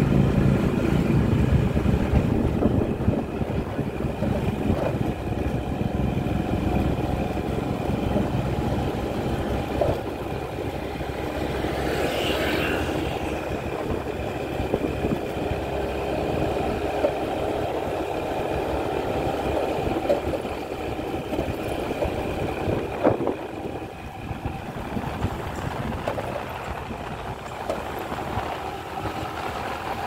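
Motorbike running at low speed while ridden through slow street traffic, its engine noise mixed with the sound of passing cars.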